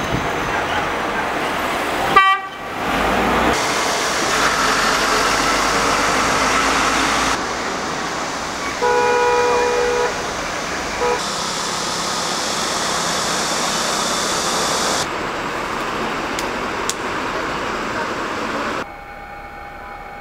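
Busy city street traffic: cars and scooters running, with a vehicle horn honking for about a second around nine seconds in and a short toot soon after. The background changes abruptly every few seconds between street scenes, and near the end drops to a quieter steady machine hum.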